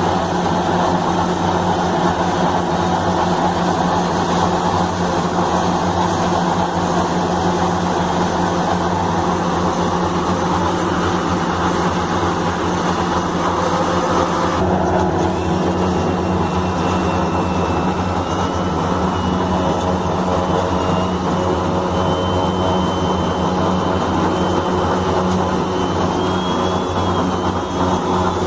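Heavy construction machinery with diesel engines running steadily, a constant engine hum. About halfway through the sound changes abruptly, and afterwards a faint high, wavering whine runs over the engine hum.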